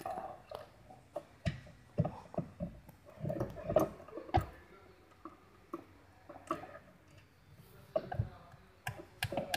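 Irregular clicks and knocks of hands handling plastic interior trim around a car's centre console, with brief muffled voices in the middle.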